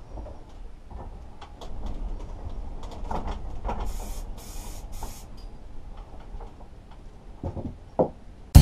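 Aerosol spray-paint can hissing in three short spurts about four seconds in, among scattered knocks and clicks of a metal mower engine shroud being handled and turned on a wooden bench.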